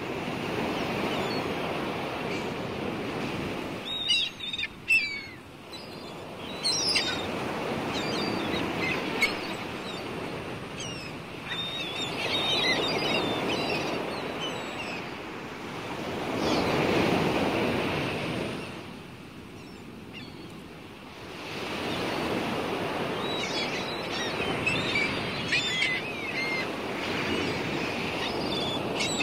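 Outdoor ambience: a rushing noise that swells and fades every few seconds, with small birds chirping now and then, most busily about four to nine seconds in and again near the end.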